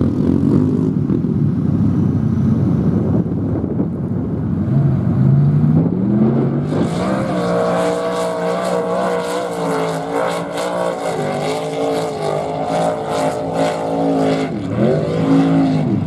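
Lifted mud bog truck's engine rumbling low, then revving up about five seconds in and running hard at high revs as the truck ploughs through a water-filled mud pit, with a hiss of mud and water thrown by the tyres. Near the end the revs rise and fall.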